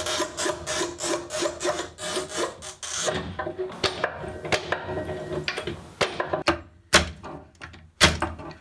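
Montolit Masterpiuma P3 manual tile cutter's scoring wheel pushed across a sheet of glass mosaic tiles, a rapid scratchy clicking for about six seconds. Near the end come a few separate sharp snaps as the scored glass tiles are broken.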